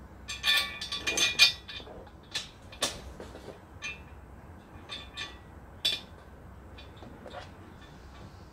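Steel bolt clinking and scraping against an IKEA LERBERG shelf unit's metal frame as it is pushed into a hole and turned in by hand: a cluster of ringing clinks in the first second and a half, then scattered single clicks.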